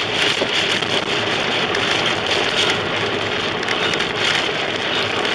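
Heavy rain pelting a car's windshield and body, heard from inside the moving car, with a dense patter of drop impacts over steady road and engine noise.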